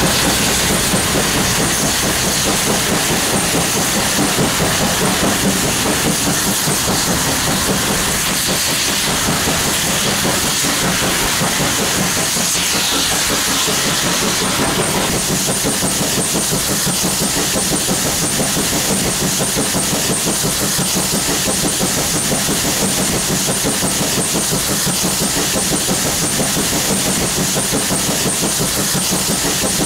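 Steam locomotive sound from a double-headed HO-scale model train of Italian FS steam locomotives, class 640 leading, running steadily, with a continuous steam hiss and the clatter of wheels over the track.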